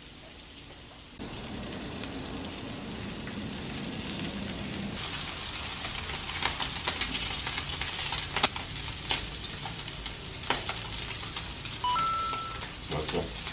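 Eel pieces sizzling on a hot electric griddle, with scattered crackling pops; the sizzle comes up about a second in. A short electronic beep sounds near the end.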